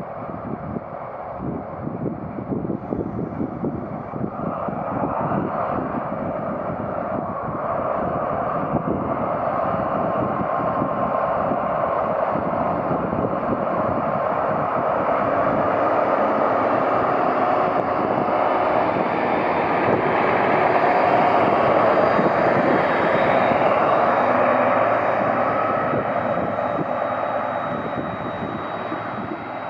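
DR class 118 (V180) diesel-hydraulic locomotive running in with a passenger train, its engine sound growing steadily louder as it approaches and passes, loudest about two-thirds of the way through. Wind buffets the microphone, mostly in the first half.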